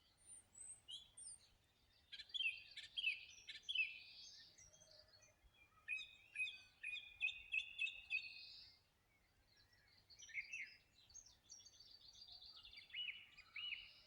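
Songbirds singing: several bursts of quick chirping phrases, each one to three seconds long, with short pauses between.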